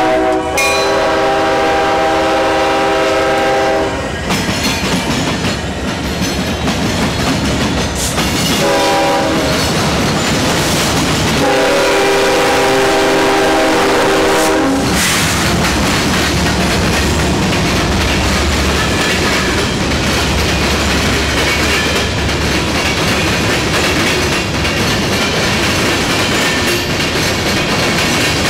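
Diesel freight locomotive air horn sounding three blasts: a long one that stops about 4 s in, a short one near 9 s and another long one from about 11.5 to 15 s. Then the GE ES44AC/AC45CCTE locomotives pass with a low engine rumble, followed by empty coke hopper cars clattering over the rail diamond crossing.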